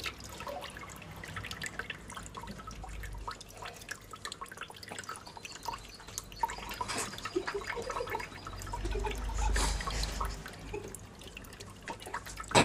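A thin stream of running water trickling and dripping into cupped hands, with small splashes near the end as a European goldfinch bathes in the pooled water.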